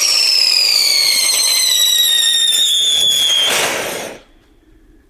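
Funke Tornado-Wirbel whistling firework lit with a sharp pop, then one loud high whistle that falls steadily in pitch for about three and a half seconds and ends in a short hiss of sparks. It burns out on the ground instead of lifting off: a failed launch.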